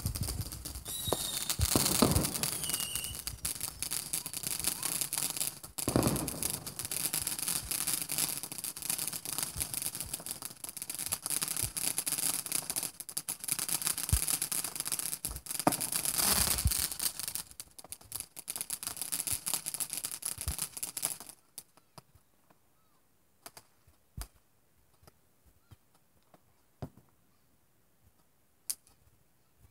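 Consumer fireworks going off at ground level: a dense run of crackling and popping with several louder bangs. It stops suddenly after about twenty seconds, leaving a few scattered pops.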